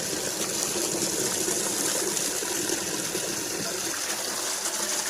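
Water running steadily into a container as it is filled, an even rushing splash.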